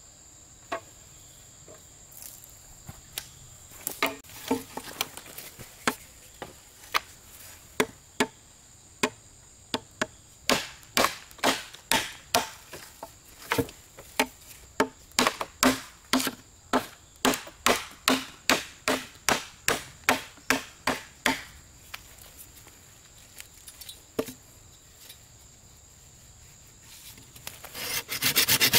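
Wood being chopped with a blade: a few scattered blows at first, then a steady run of about two strikes a second that stops a little past the middle. Insects keep up a steady high chirring throughout, and near the end a loud scraping starts.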